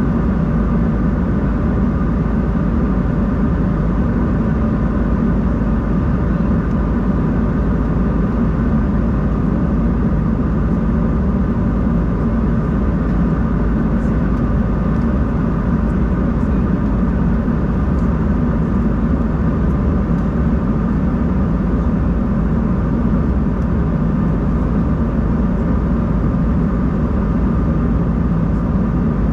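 Steady cabin noise inside an Embraer 190-E2 airliner: a constant rumble of its Pratt & Whitney PW1900G geared turbofan engines and airflow, with a low hum and faint steady whining tones, unchanging in level throughout.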